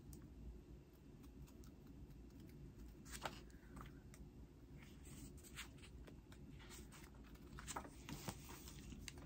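Faint handling noise of paper and plastic packaging: soft rustles and scattered light clicks, with a sharper click about three seconds in and a few more near the end, over a low steady room hum.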